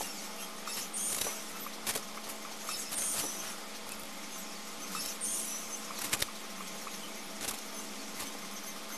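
Pencil scratching on paper in short shading strokes, with scattered light taps of the pencil and hand on the sheet.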